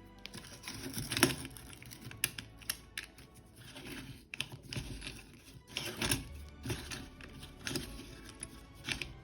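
Irregular sharp clicks and knocks of small metal AR-15 lower receiver parts and tools being handled during assembly, the loudest about a second in and around six seconds in, over background music.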